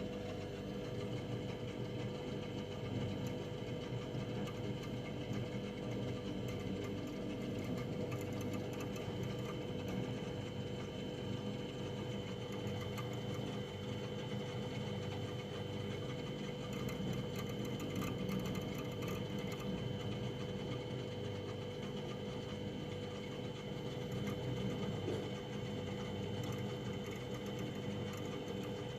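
Household freezer running: a steady compressor and fan hum with a fixed mid-pitched whine and a fainter high whine, and faint light ticks now and then.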